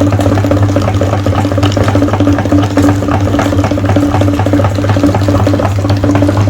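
Electric meat grinder running with a steady motor hum, with a wet crackling as eggs are forced through it.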